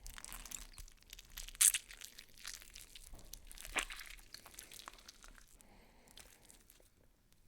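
Cows grazing: grass being torn off and chewed in a run of irregular ripping and crunching sounds, the sharpest about a second and a half in and again near four seconds, thinning out toward the end.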